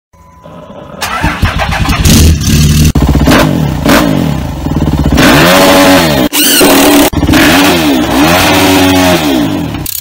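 An engine starting about a second in, then revved hard several times, its pitch rising and falling with each rev.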